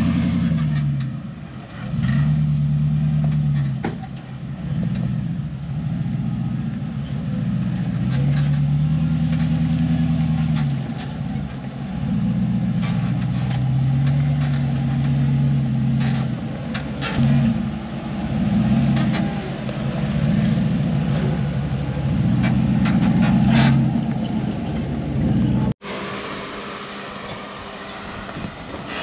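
Off-road truck engine revving in repeated surges, its pitch rising and falling as it is pushed up an obstacle with momentum, with scattered clicks and knocks. The sound breaks off abruptly near the end.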